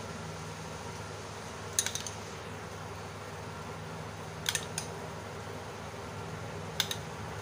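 A spoon clinking against a bowl while dolloping whipped, food-coloured yogurt: a few short, sharp clinks about two, four and a half and seven seconds in, over a steady low hum.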